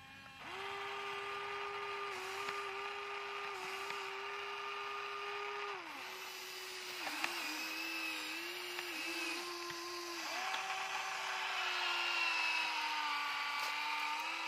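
Radio-controlled Huina toy excavator's electric motors whining as the boom, arm and bucket work. The whine starts about half a second in, shifts in pitch and dips briefly several times.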